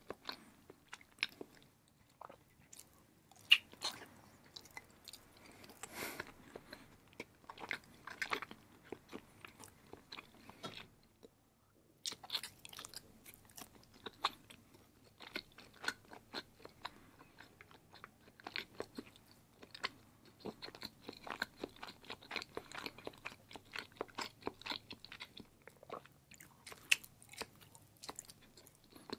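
A person chewing and biting into block cheese, close to the microphone: a steady run of short mouth clicks and smacks, broken by a brief silence about eleven seconds in.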